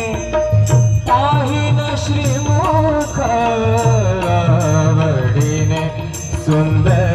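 A voice singing a Marathi devotional abhang to Vitthal, with held, gliding notes over a steady drum beat and regular strokes of small cymbals.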